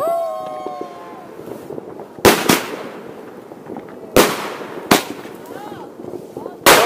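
New Year fireworks going off: five sharp bangs, a quick pair a little over two seconds in, then single ones about two seconds, three seconds and four and a half seconds later. Voices call out at the start.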